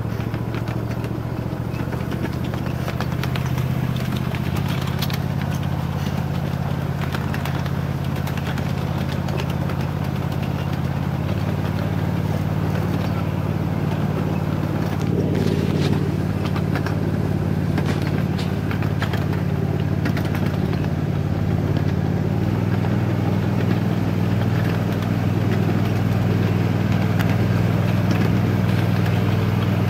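Ride-on miniature train's motor running steadily as the train carries riders along the track, its hum shifting in pitch about a third and two thirds of the way through, with scattered clicks and rattles.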